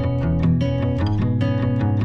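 Background music: an instrumental passage of a song, led by strummed guitar over a bass line, with a steady, even strumming rhythm.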